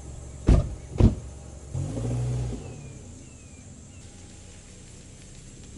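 Two car doors slam shut about half a second apart, then the sedan's engine starts with a brief loud hum and settles into running as the car pulls away, growing fainter.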